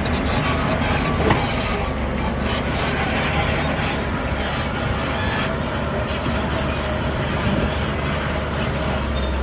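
Heavy diesel earthmoving machinery running steadily, with one brief knock about a second in.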